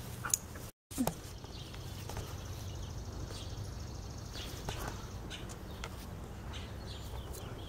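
Quiet outdoor background: a steady low rumble with a few faint scattered clicks, cutting out completely for a moment under a second in.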